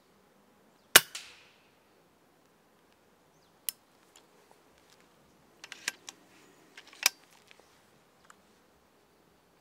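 A single moderated air-rifle shot about a second in, a sharp crack with a short tail. Several lighter, sharp clicks follow over the next few seconds, bunched about six to seven seconds in.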